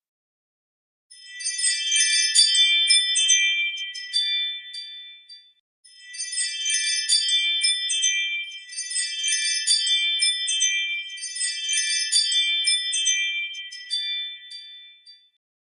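Ring alert tone: a high, tinkling bell-like chime phrase. It plays once, stops briefly, then repeats about three more times.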